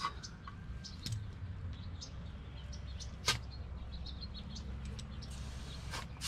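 Compressed-air chuck held on the valve stem of a flat tube-type car tyre, filling it with a faint steady hiss, a sharp click about three seconds in and a loud hiss starting right at the end.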